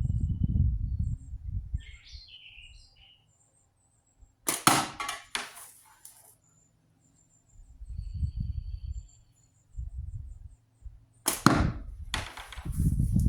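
Slingshot with heavy 0.7 latex bands shooting 11 mm steel balls, twice, about seven seconds apart. Each shot is a sharp snap with a brief whoosh after it.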